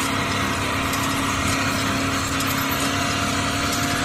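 Small motor of a toy-scale RC model tractor running steadily while it pulls a tine cultivator through loose soil: a continuous mechanical hum with a constant whine.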